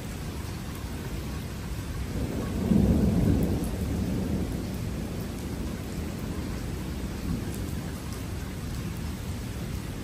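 Thunder rumbling over steady rain. A low rumble swells about two seconds in, peaks a second later, then fades over the next couple of seconds.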